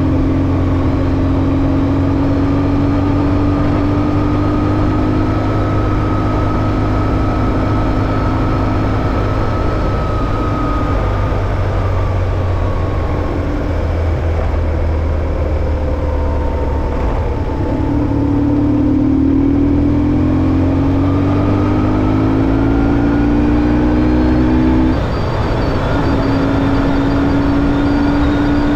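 BMW R1150GS flat-twin motorcycle engine running under way at a steady pitch, then climbing in pitch for several seconds in the second half before dipping briefly and settling again.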